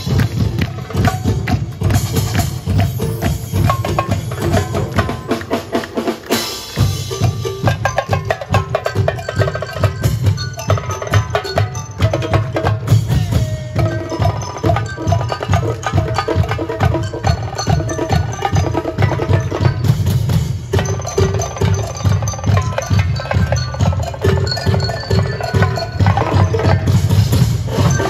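Show music with a fast percussive beat: rapid struck strokes and tuned ringing tones over a strong low drum pulse. The low end drops away briefly about five seconds in and returns a couple of seconds later.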